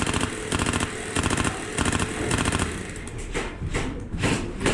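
Airsoft electric gun firing several rapid full-auto bursts, one after another, with a run of heavier, slower knocks near the end.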